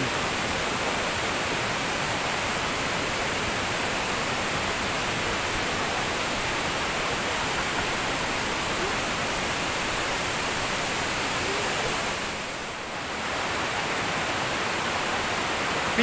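Waterfall and a stream running over rocks, a steady rush of water that dips briefly about three-quarters of the way through.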